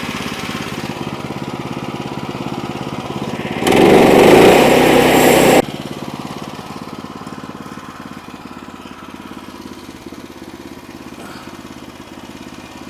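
Sawmill's small gasoline engine running steadily, with a loud rushing burst of about two seconds that starts and cuts off abruptly near the middle; afterwards the engine runs more quietly.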